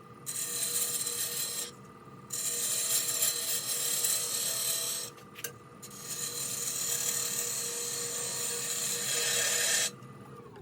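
Spindle gouge cutting a spinning goncalo alves blank on a wood lathe: three long cuts of scraping hiss with short pauses between, over the lathe's steady motor whine. This is the rough shaping stage of the turning.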